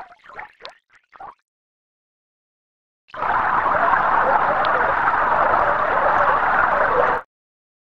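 Computer-synthesized water sounds generated from simulated bubble vibrations. A brief splash of water with bubbly plops dies away in the first second or so. After a silent gap, a steady pour of water spilling over a step into a tank runs for about four seconds and cuts off abruptly.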